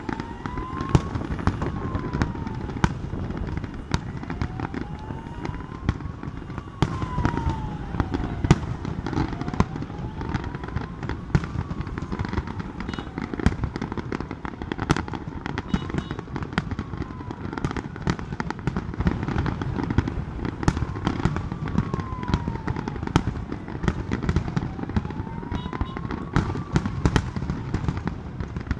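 Aerial fireworks display: shells bursting one after another in a near-continuous run of sharp bangs and crackling. Under it, a tone rises and falls over and over, about every five seconds.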